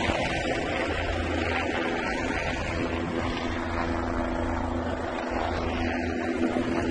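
A steady engine drone under a rushing noise, with a few low hum tones held throughout and no breaks.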